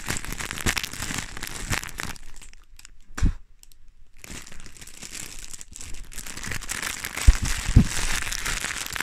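Packaging of a plush toy being ripped open and crumpled by hand, crinkling and tearing, with a quieter pause in the middle broken by one knock. The crinkling resumes, with two louder thumps near the end.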